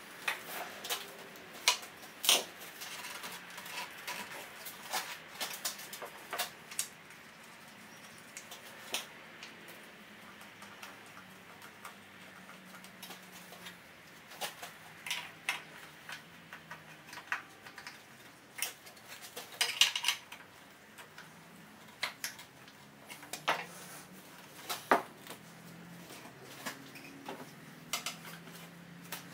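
Irregular clicks, taps and knocks of a hard plastic dashboard crash pad being handled and turned over on a workbench, with a quick flurry of clatter about two-thirds of the way through.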